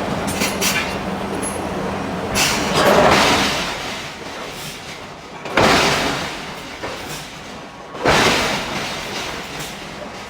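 A hydraulic forging hammer striking hot steel three times, about every two and a half to three seconds. Each blow is a sudden crash that dies away over a second or two, over steady machinery noise with a low hum.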